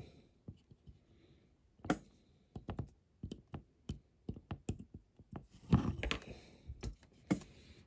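Light clicks and taps of fingers and a craft knife blade on a die-cast toy car body as a small plate is pressed into place on the bonnet, with a short scratchy rubbing about six seconds in.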